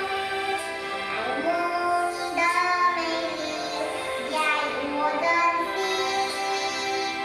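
A seven-year-old girl singing a held, gliding melody over backing music.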